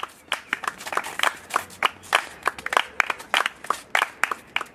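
A small group clapping their hands together in a steady beat, several sharp claps a second.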